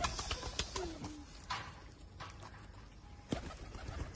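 Domestic pigeons cooing, one curved low coo about a second in, with a few sharp clicks scattered through.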